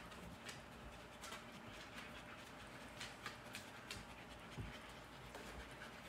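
Dogs panting faintly, with a few soft clicks and a low thump about four and a half seconds in.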